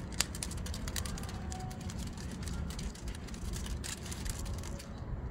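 Steady low outdoor city rumble with a run of light, sharp clicks and scratches that stops near the end.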